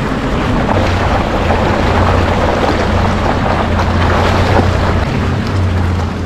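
Toyota Land Cruiser FZJ80's straight-six engine running steadily, with a continuous rushing noise and scattered crackles over it.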